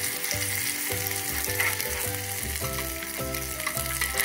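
Marinated kingfish steaks sizzling in hot oil in a cast-iron pan, with metal spatulas scraping and clicking against the pan as a steak is turned over to fry its other side.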